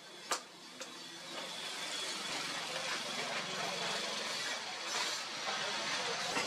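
Motor-driven forging press running steadily as its round ram bears down on red-hot steel on the anvil; the drone builds up about a second in, after two sharp metal taps at the start.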